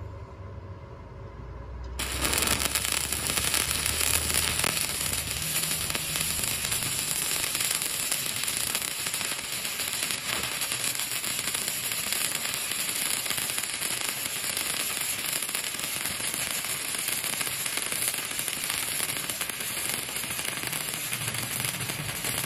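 Stick welding arc crackling steadily as a coated electrode lays a bead on a steel bar. The arc strikes about two seconds in and runs until it breaks off suddenly at the very end.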